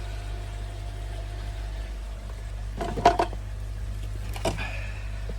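Parts of a pond filter being handled: a quick cluster of sharp knocks about three seconds in and a smaller knock at about four and a half seconds, over a steady low hum.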